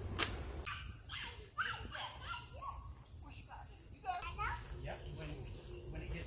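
Steady, high-pitched drone of insects singing in the woods, with a sharp click just after the start.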